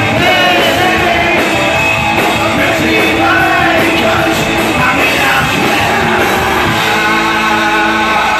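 Live punk rock band playing loudly, with shouted singing over the music and the echo of a large hall.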